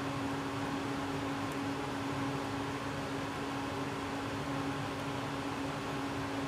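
Steady background machine hum: one held low-mid pitch over a faint even hiss.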